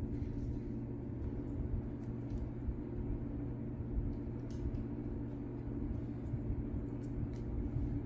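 Steady low machine hum in the room, like an air conditioner or appliance running. A few faint light ticks come from fingertips pressing a vinyl skin onto the back of a phone.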